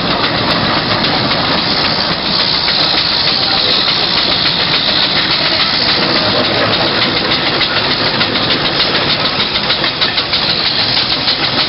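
Several steam traction engines coupled in a line, working hard under a heavy load: a steady loud hiss of steam with fast, even exhaust beats.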